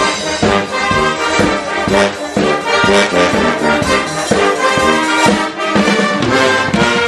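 Brass band playing live: tubas, trumpets and other brass over a regular beat.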